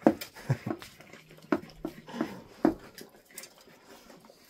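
Dogs licking dirty dishes in an open dishwasher rack: wet lapping with several sharp knocks of dishes against the rack, most in the first three seconds.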